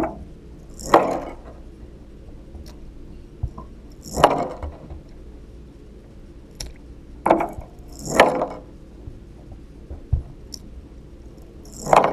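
Fishing lures splashing into and being pulled through a tub of water, heard through a GoPro's underwater housing. There are six sharp swishes a second to a few seconds apart, each fading quickly, with faint clicks in between.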